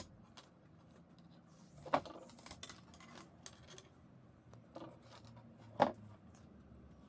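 Small metal crocodile clips and wires being handled on a wooden table: light clicks and a few sharper knocks, the loudest a little before the end.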